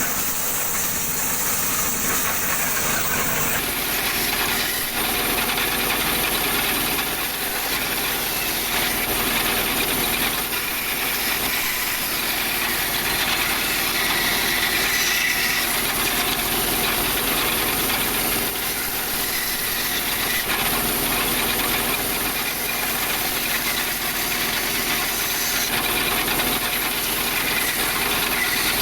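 Woodworking machinery running steadily with a loud hiss, its sound changing abruptly about three and a half seconds in.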